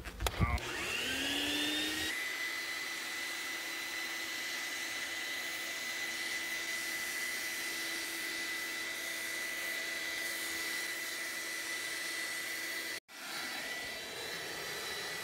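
Shop vacuum rigged as a bee vacuum switched on: the motor spins up with a rising whine over the first two seconds, then runs steadily with an even rushing hiss as the hose sucks up honeybees. The sound cuts out for an instant near the end.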